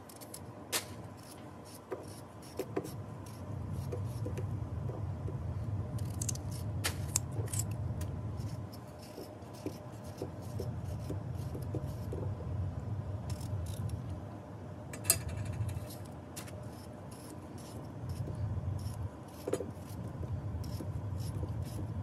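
Kitchen knife cutting raw potatoes into wedges held in the hand, with scattered clicks and light taps as the blade goes through and pieces drop into a stainless steel saucepan, over a low hum. A sharper click about fifteen seconds in is the loudest.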